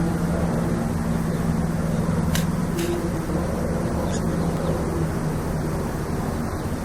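Unexplained steady low droning hum: a held low tone with a second tone above it over a rumbling background, the tones dying away about six seconds in. A few faint short clicks.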